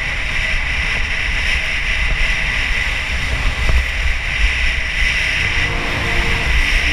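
Wind buffeting the microphone as a skier runs fast down a groomed piste, with the steady hiss of skis scraping over hard-packed snow. Music comes back in near the end.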